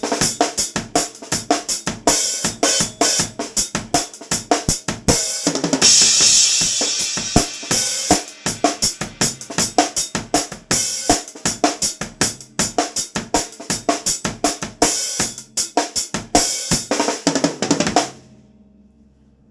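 Acoustic drum kit played busily, with rapid snare, kick and hi-hat strokes. A crash cymbal rings out about six seconds in. The playing stops sharply near the end.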